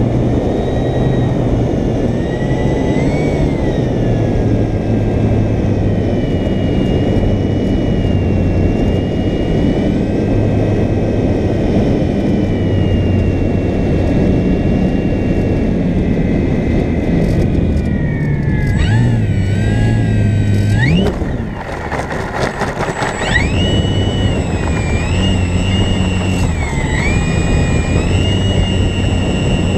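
Brushless electric motor and propeller of an RC plane whining steadily, with wind rushing over an onboard camera. About 19 s in the whine wavers and shifts pitch. Around 21 s it drops away amid a run of sharp rattling clicks as the plane comes down on grass, then it picks up again steadily as the plane runs along the ground.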